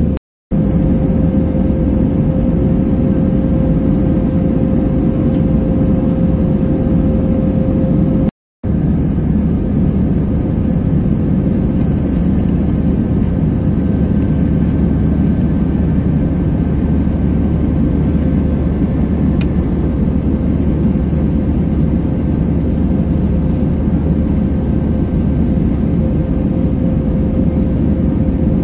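Jet airliner cabin noise on the landing approach: a loud, steady roar of engines and airflow with a steady hum running through it. The sound drops out briefly twice, less than a second in and about eight seconds in.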